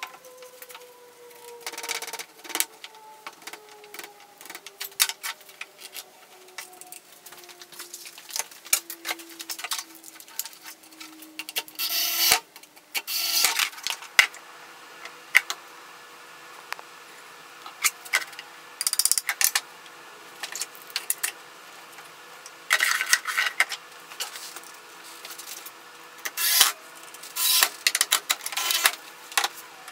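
Workshop handling sounds: clicks and knocks of clamps and wooden pieces being set in place, with several short runs of an electric drill driving screws into a wooden leg frame. A faint tone slowly drops in pitch through the first twelve seconds or so.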